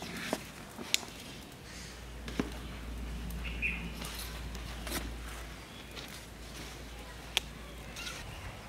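A large banana leaf swept back and forth to fan a wood fire under a clay pot, the air from it rumbling low and steady over the first half. A few sharp cracks come at intervals, and a bird gives one short chirp a little before halfway.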